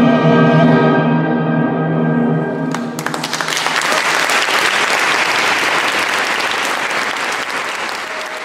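Orchestra holding the final chord of the aria, cut off sharply about three seconds in, then audience applause that builds quickly and runs on steadily.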